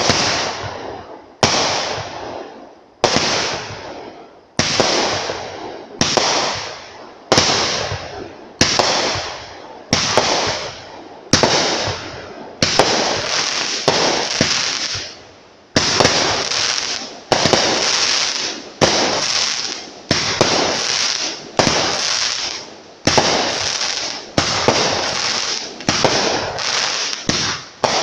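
A Piercing Comet multi-shot firework firing about twenty shots in a steady sequence, roughly one every second and a half. Each shot is a sharp bang followed by a fading hiss.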